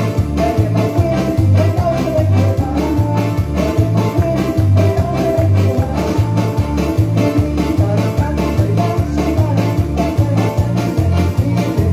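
Christian worship band music with a steady beat: a pulsing bass line, drums and guitar.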